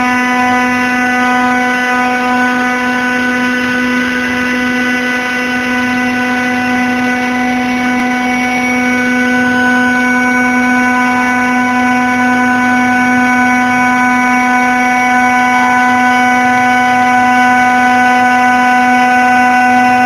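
The 2.2 kW water-cooled spindle of a 6090 CNC router running at a steady pitch as it cuts circles out of metal sheet: a constant machine whine with a strong hum beneath it.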